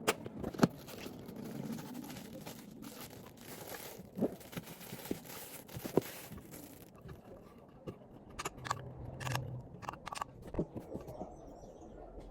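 Packaging being handled and opened: plastic and paper crinkling and rustling for several seconds, then a few scattered clicks and light knocks.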